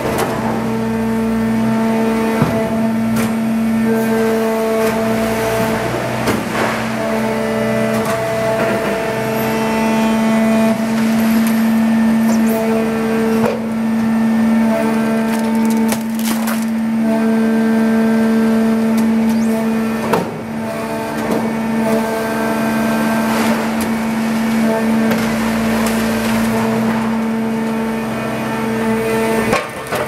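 Automatic continuous-feed scrap baler running: a steady machine hum made of several tones, one of which drops in and out as the press cycles, with scattered sharp knocks as compacted scrap is pushed through the bale chute.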